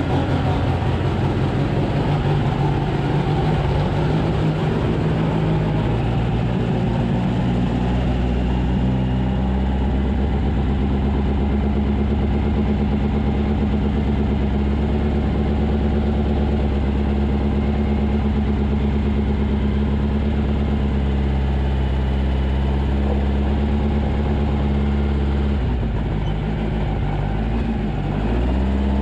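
VW engine of a rock-crawler buggy running under load as the buggy is driven. Its pitch climbs over the first several seconds and holds steady, then drops briefly near the end and climbs again.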